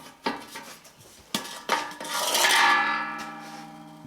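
Cans and the steel can gate of a can-crusher machine clattering: a few sharp metallic knocks, then a louder clatter about two seconds in that rings on as a metallic hum and fades.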